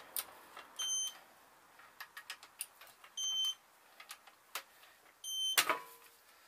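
Electronic torque wrench giving short high beeps, three times, as each con-rod bolt reaches its set torque of 35 lb ft, with light metallic clicks of the wrench and socket between the beeps. A louder clatter follows the last beep near the end.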